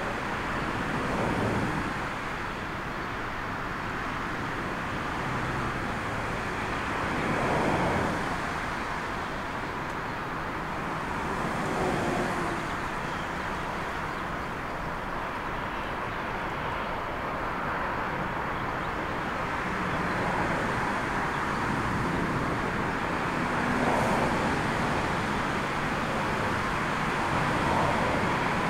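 Steady rumble of storm wind mixed with a twin-turboprop airliner's engines as it lands and rolls out, rising and falling several times.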